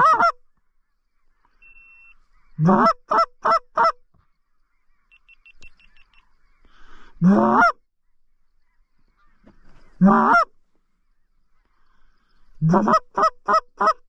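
Hand-blown goose call sounding honks and clucks to draw in circling geese: five bursts, some a single long rising honk, others a quick run of four or five clucks.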